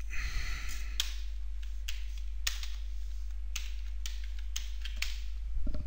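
Irregular keystrokes on a computer keyboard, a dozen or so separate clicks as code is typed, over a steady low electrical hum.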